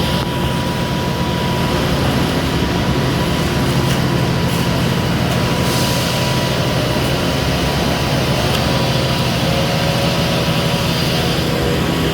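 Heavy construction machinery on a concrete job running steadily, a low engine drone with a constant hum and no change in pace.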